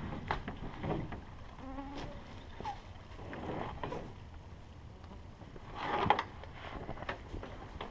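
Packs being lifted out of an aluminum canoe: scattered knocks, scrapes and rustles of gear against the hull, with the loudest knock about six seconds in. A fly buzzes past briefly about two seconds in.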